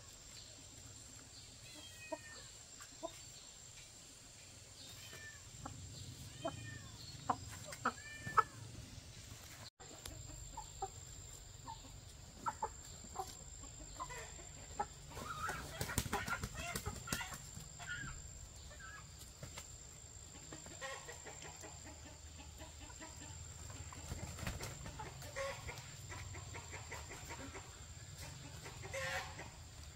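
Chickens clucking: short scattered calls, busiest in the first third and again near the middle, with a few clicks and a thin steady high tone underneath.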